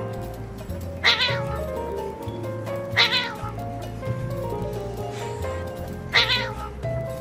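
A cat gives three short yowls, about a second in, at three seconds and just after six seconds: aggressive calls from cats squabbling over food. Background music plays throughout.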